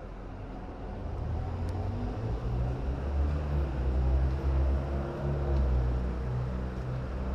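Low rumble of a motor vehicle engine running in street traffic, growing louder about a second in and staying strong.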